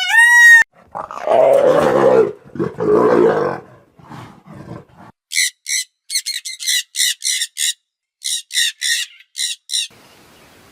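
A sequence of animal calls: a short pitched call that rises and falls, then two rough growling roars, then a quick run of short, high-pitched chirping calls.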